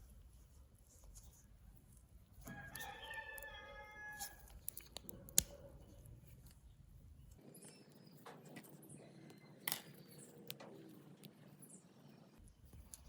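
Faint, scattered sharp clicks and taps, and a drawn-out pitched call with several overtones about two and a half seconds in, lasting under two seconds.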